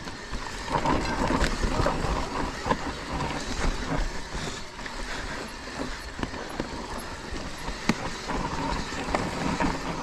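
Electric mountain bike riding down a rough, rutted dirt trail: tyres rolling over dirt and the bike rattling and clattering over bumps, with many sharp knocks through it.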